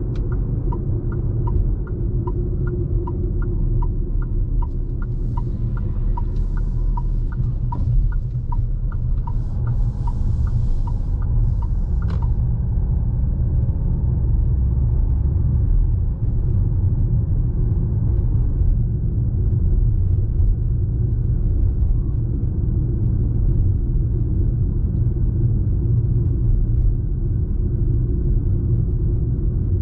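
Fiat Toro's 2.0 diesel pickup on the move, a steady low rumble of engine and road. For the first twelve seconds or so a turn-signal indicator ticks about twice a second in an alternating tick-tock, then stops with a click.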